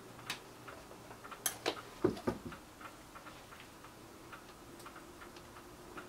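Clicks and taps of a small wooden stick working suet mix from a plastic tub into the holes of a log bird feeder, loudest in the first two and a half seconds, then fainter light ticks.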